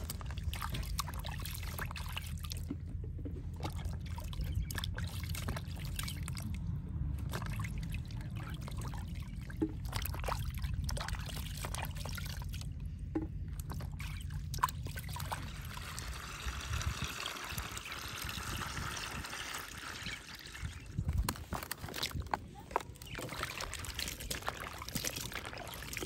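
Water sloshing, trickling and splashing in a plastic basin as fruit is rubbed and rinsed by hand, over a low steady rumble that stops about two-thirds of the way in.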